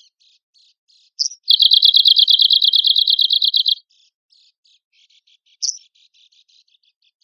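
Arctic warbler singing: a sharp high call about a second in, then a fast, even, high trill lasting about two seconds, followed by faint rapid notes and another short sharp call.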